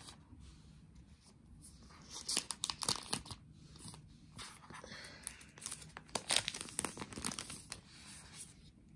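Clear protective plastic film being peeled off a new laptop's aluminium underside: intermittent crinkling and tearing crackles, sparse at first and coming in clusters from about two seconds in.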